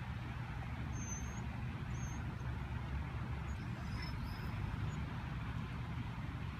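Steady low rumble of distant city traffic, with two short, high bird chirps about one and two seconds in and fainter ones later.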